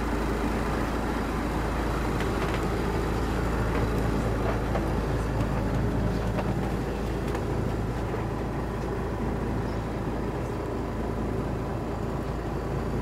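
110 hp six-cylinder Mercedes diesel engine idling steadily while it warms up after a cold start, heard from inside the barge's cabin. The running is quiet enough to hear yourself think.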